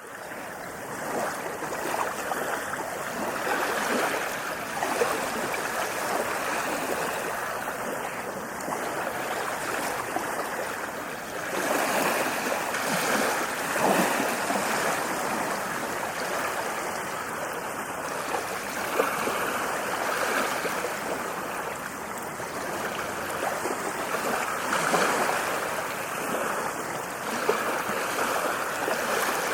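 Ocean waves washing onto a shore, a continuous rush of surf that swells and eases every few seconds, fading in at the very start.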